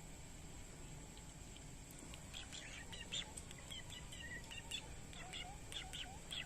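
Birds chirping: a run of short, high chirps that starts about two seconds in, with a few small sliding notes near the end.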